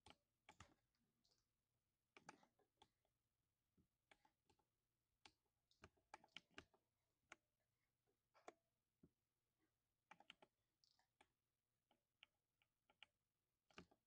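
Quiet typing on a 60% mechanical keyboard with lubed silver linear switches: irregular keystrokes, some single and some in quick runs, with short pauses between.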